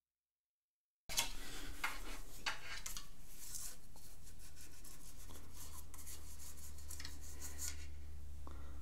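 After a second of silence, a small dog's fur rustles and rubs close to the microphone in a string of irregular scratchy brushes over a steady low hum.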